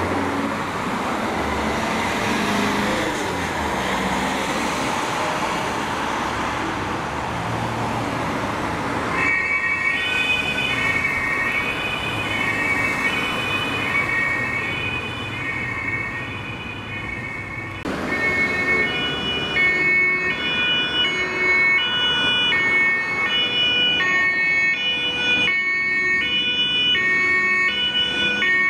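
Road traffic and a passing vehicle, then, about nine seconds in, the German two-tone emergency siren of THW vehicles starts, alternating steadily between a high and a low note. From just past halfway a second two-tone siren at a different pitch overlaps the first.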